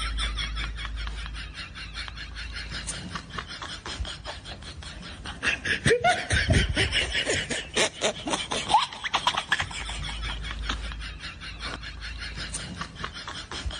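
Several people laughing in quick, pulsing bursts, loudest in the middle stretch.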